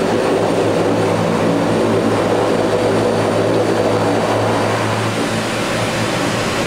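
ATR 42 twin turboprop engines and propellers running, heard from inside the cockpit as a steady drone with several steady hum tones, the lowest the strongest, easing slightly near the end.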